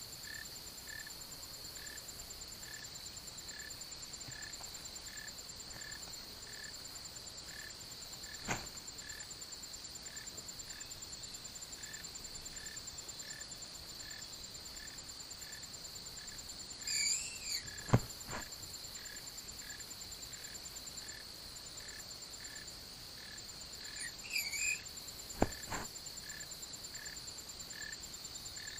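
A striped skunk gives short high squeaks twice, each followed by a sharp thump of its stamping front feet, and there is one fainter stamp earlier on: a skunk's warning display to a threat. The stamps are the loudest sounds, over a steady chorus of chirping insects.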